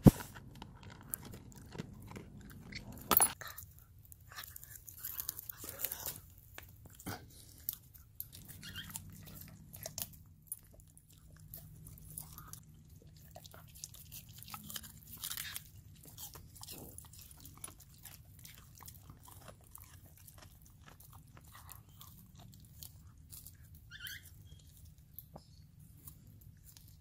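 Siberian husky crunching and chewing dry kibble: a run of irregular crunches with one loud crack about three seconds in. Later, dogs chew pieces fed by hand, the crunches fewer and quieter.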